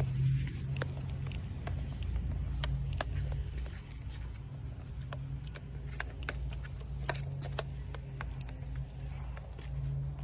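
A steady low hum, like a running vehicle engine, with irregular sharp clicks and taps over it.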